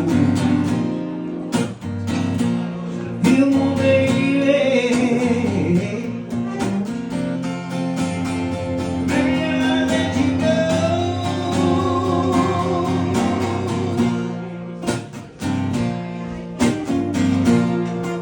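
Live acoustic guitar music: strummed chords with a melody line bending and sliding over them.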